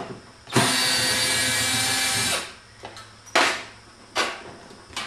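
Cordless drill running steadily for about two seconds, backing a screw out of a wooden shipping crate. Three brief handling noises follow at the crate.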